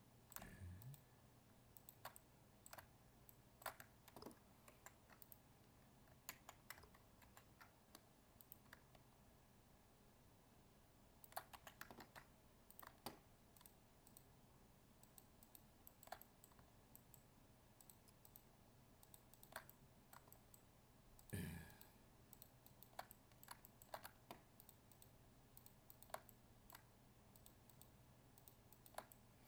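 Faint, scattered clicks of a computer mouse and keyboard keys, in small clusters with gaps, over quiet room tone. One louder, duller knock about two-thirds of the way through.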